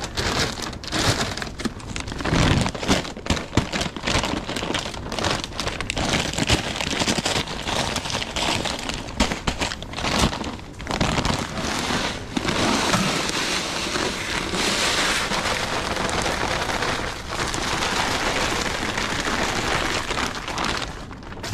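Rock salt being spread on an icy driveway: many small grains clicking onto the pavement, turning into a steady hiss from about halfway through.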